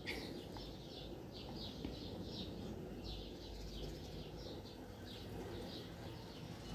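A small bird chirping over and over in a run of short, high, falling chirps, a few a second.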